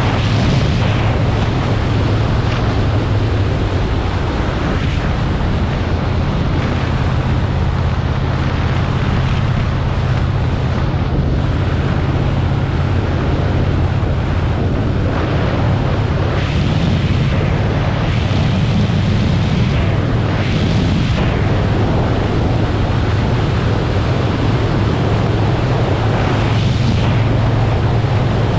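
Motorcycle engine running at a steady cruising note while riding, with heavy wind rushing over the microphone.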